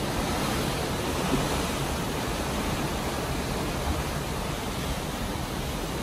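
Steady rush of seawater foaming along the hull of a moving ship, mixed with wind buffeting the microphone.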